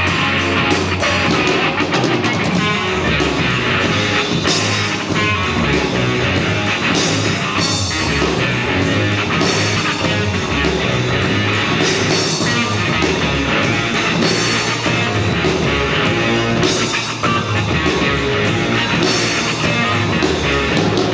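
Live rock band playing an instrumental passage with guitar and drum kit, with a steady pulsing bass line and cymbal crashes recurring every couple of seconds.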